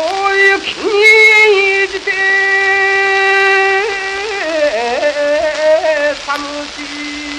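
A male shigin chanter's voice from a 1938 SP 78-rpm record, holding long notes that waver and bend in pitch, over the record's steady surface hiss. Near the end the voice gives way to a single thin held tone.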